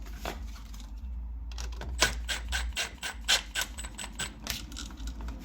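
Screwdriver working a terminal screw on a GFCI outlet as a wire is fastened: a run of small irregular clicks and scrapes, with a short pause about a second in.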